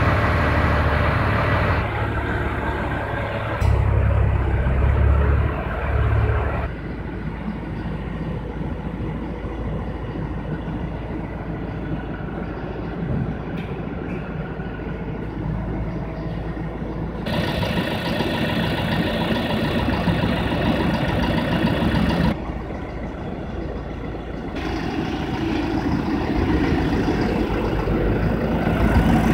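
Tractor engine and machinery running steadily, with a strong low hum at first. The sound changes abruptly in level and tone several times.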